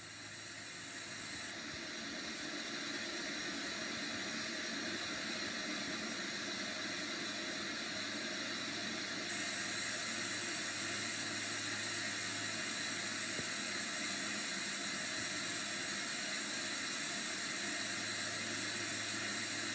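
Steady static hiss with a low electrical hum underneath. About nine seconds in, the hiss abruptly becomes louder and brighter.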